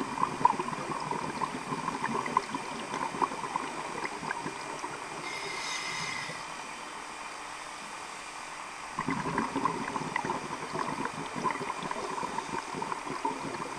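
Scuba diver's regulator underwater, a full breathing cycle. A stream of exhaled bubbles gurgles and crackles and fades out. Then comes a short hissing inhalation about six seconds in, and a second long stream of exhaled bubbles starts about nine seconds in.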